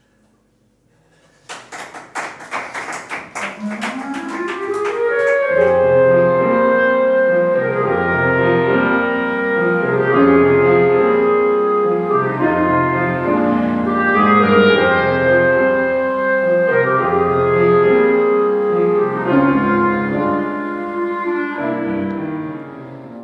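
Clarinet playing with piano accompaniment. About a second and a half in, quick repeated notes start up and build, and from about five seconds long, held clarinet notes carry the melody over the piano's bass until the music drops away at the end.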